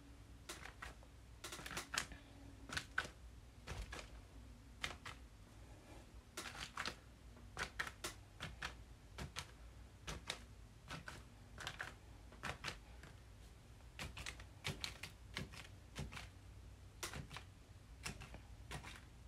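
Paint marker tip tapping down on the card again and again as paint dots are dabbed on: irregular light clicks, often a few close together, with short pauses between.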